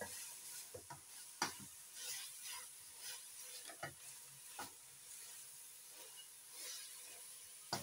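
Minced mutton frying in oil in an open aluminium pressure cooker, stirred with a spatula: a faint sizzle with irregular scrapes and taps of the spatula against the pot. The oil is starting to separate, the sign the mince is nearly done.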